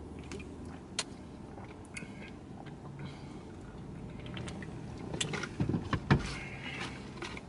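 Someone drinking from a drink can, with a few small clicks over a low steady hum. About five seconds in there is a short cluster of louder knocks and rustling from handling.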